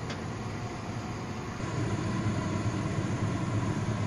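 Steady low machine-like hum with a noisy hiss over it, a little louder from about two seconds in.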